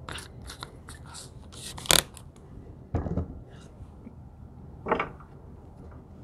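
A cordless drill being handled and set down on a wooden workbench: light clicks, a sharp click about two seconds in, then two knocks about a second and two seconds later.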